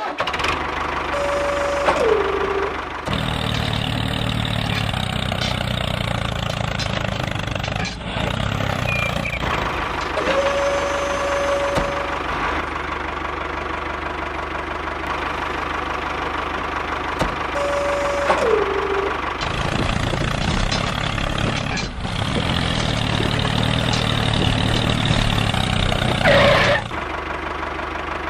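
Tractor engine sound running steadily, with heavier low chugging for a few seconds early on and again through the second half. Three short whistle-like tones, each holding and then dipping in pitch, sound over it.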